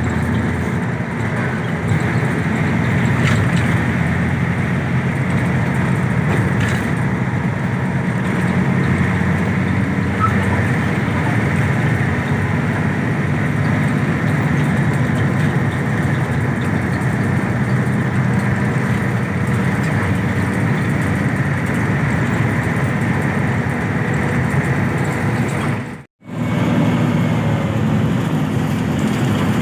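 Intercity bus on the move: steady engine note and road noise. The sound cuts out for an instant about 26 seconds in, then resumes.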